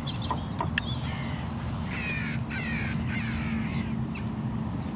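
Hooded crows cawing, a run of harsh calls in the middle stretch, over steady field background noise.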